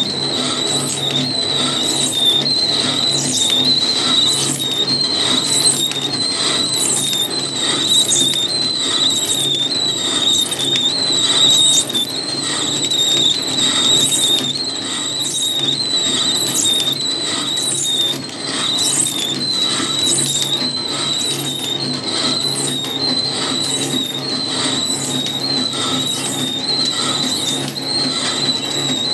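Mini flow-wrap packing machine running while wrapping candies. A steady high-pitched whine runs over a low hum, with a rhythmic hissing pulse about one and a half times a second.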